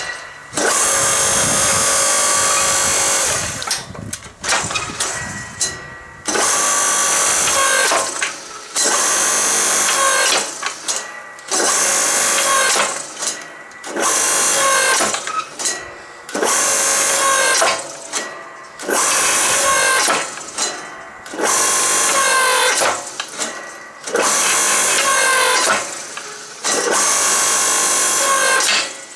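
Electric log splitter converted to a forge press: its electric motor and hydraulic pump running in about a dozen short runs of a second and a half to two seconds each, starting and stopping as the ram presses hot steel between the dies. The pitch falls a little near the end of each run.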